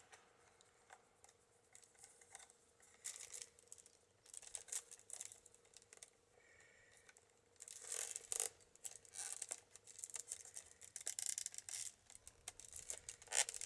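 Thin bird-cherry rods and the basket's wickerwork being handled: irregular scrapes and rustles of wood rubbing on wood, in short bursts with pauses between.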